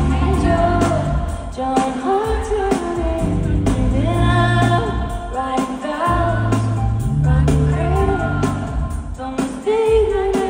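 Pop song: a woman singing a melody over held bass notes and a steady drum beat.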